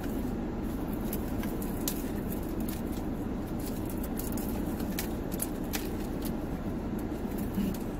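Steady low hum inside a car cabin with the engine running, with scattered small clicks.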